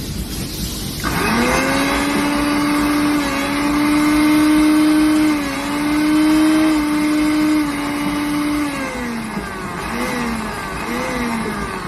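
Suruchi Elantra 800-watt mixer grinder motor starting about a second in and running at speed with a steady whine, then slowing and stopping near nine seconds, followed by two short pulses.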